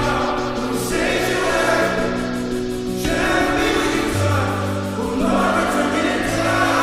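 Background music: a Christian pop song with choir-like singing over sustained chords.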